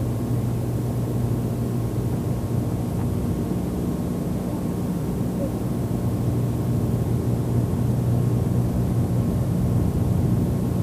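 A steady low hum with a haze of background noise.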